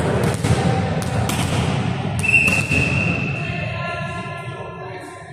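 A volleyball being bounced on the gym floor before a serve, a few sharp knocks. About two seconds in comes a long, steady, high whistle note, fading slowly in the hall's echo.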